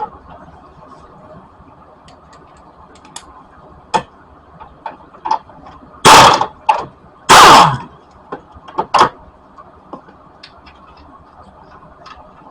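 Power wrench running in two short loud bursts about six and seven seconds in, the second winding down in pitch as it stops, loosening the 15 mm bolts of a transmission mount; scattered metal clicks and knocks of the socket and bolts between.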